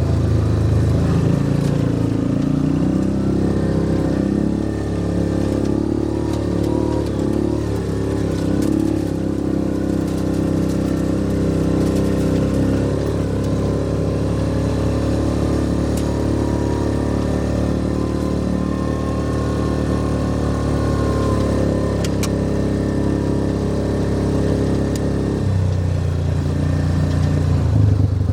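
Yamaha Rhino side-by-side UTV engine running while driving, its pitch rising and falling with the throttle, then dropping to a lower, steadier note near the end.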